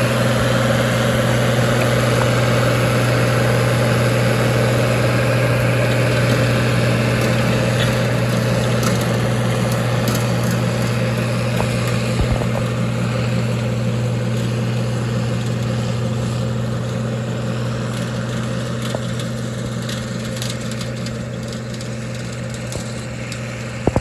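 International Harvester 1466's 7.1-litre turbocharged six-cylinder diesel running steadily under load, pulling a working manure spreader whose beaters are throwing manure. The sound fades gradually as the tractor moves away.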